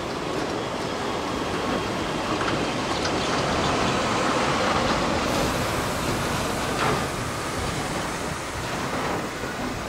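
A train running past on the line, its rumbling running noise swelling to a peak midway and then easing off, with one sharp click about seven seconds in.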